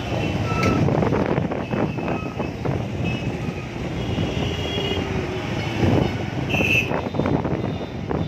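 Busy street traffic: a continuous rumble of engines and road noise with some wind on the microphone, and a few short horn toots, the loudest near the end.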